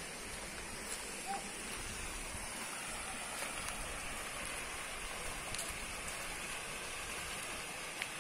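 Steady hiss of running water, with a few faint clicks.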